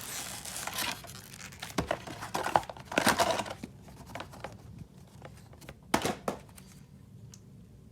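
Packaging being opened by hand: crinkling, rustling and tearing in bursts, with a sharp click about six seconds in and quieter handling after it.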